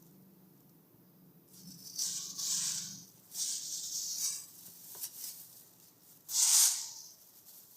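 Plastic crinkling and rustling as a kitten plays with it, in several short bursts, the loudest about six and a half seconds in.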